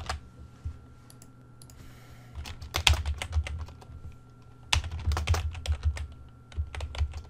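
Typing on a computer keyboard: a few short runs of keystrokes with pauses between them.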